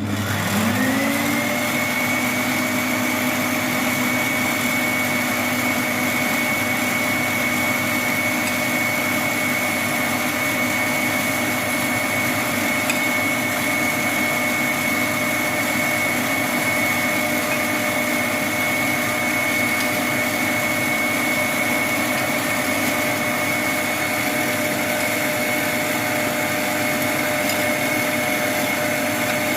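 Electric mixer motor spinning up about a second in, then running steadily with an even whine as it mixes cake batter.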